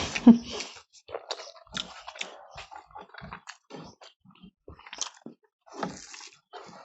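People chewing mouthfuls of rice and curry with irregular wet smacks and clicks of the mouth. A short voiced sound comes right at the start.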